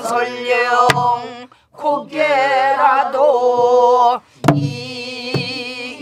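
Korean traditional vocal singing with heavy vibrato in long held phrases, broken twice by short pauses. It is accompanied by a few sharp strokes on a buk barrel drum: one about a second in and two more past the middle.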